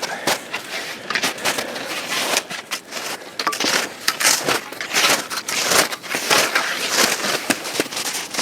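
Dense, irregular crunching and crackling of snow as someone moves through it.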